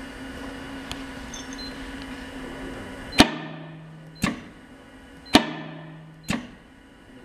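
Roll feeder's feed-roll clamp and release mechanism on an AIDA F-20III, clacking four times about a second apart. Each clack rings briefly. A steady hum holds between the first and second clack and between the third and fourth, as the rolls open and close in turn.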